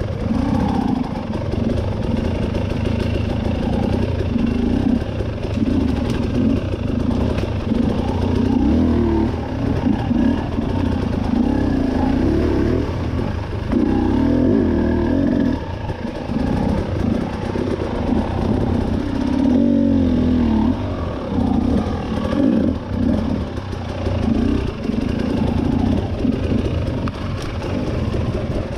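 Husqvarna enduro motorcycle engine running as it is ridden, revving up and down again and again as the throttle is opened and closed.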